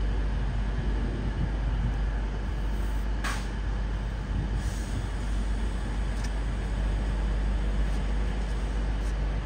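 Train running through or standing at the station: a steady, heavy rumble, with one short sharp hiss about three seconds in.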